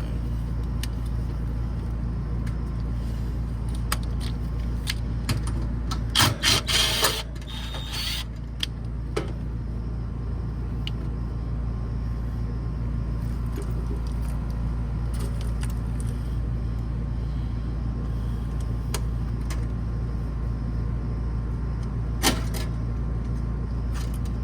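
Metal tools and parts clicking and rattling as an air-conditioner condenser is worked on, with a burst of rattling about six seconds in and a sharp click near the end, over a steady low hum.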